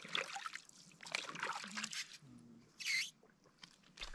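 Lake water sloshing and trickling as a plastic bottle is dipped in at the shore and lifted out dripping, with a brief louder splash of water about three seconds in.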